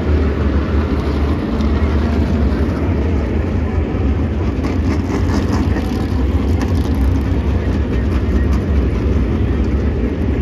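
A field of Tour Modified race cars' V8 engines running together as the cars lap the oval: a loud, steady, heavy engine drone with no clear single pass standing out.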